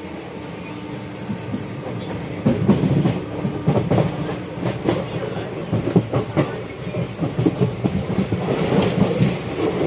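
Train wheels clattering over rail joints, growing louder about two and a half seconds in as the rail cars roll by, with a thin high squeal near the end.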